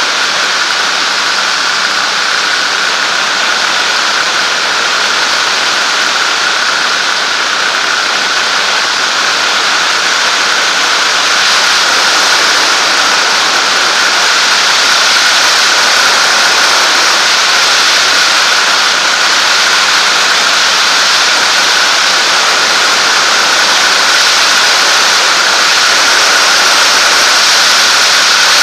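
Zenair 701 light aircraft in cruise flight: steady engine and propeller drone mixed with rushing airflow, with a steady high whine on top. It grows a little louder a little under halfway through.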